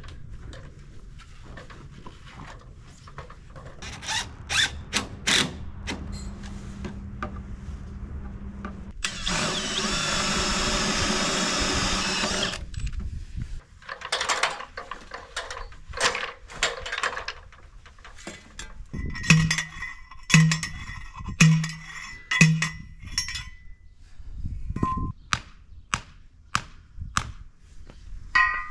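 A cordless drill runs steadily for about three and a half seconds midway, then gives four short bursts a few seconds later. Knocks and tool clatter fall throughout.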